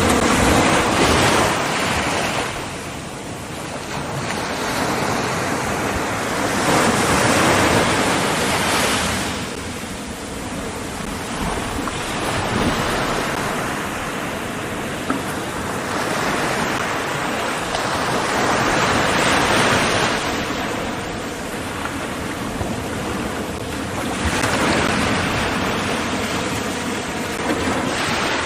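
Ocean surf washing ashore, a steady rush that swells and fades about every six seconds as waves break.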